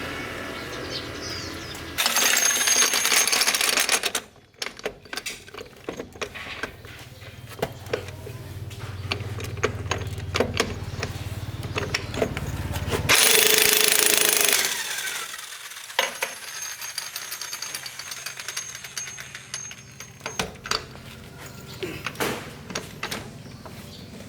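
Workshop tool noise: a power tool runs in two loud bursts of a couple of seconds each, with many scattered sharp metal clinks and knocks of tools on metal parts between them.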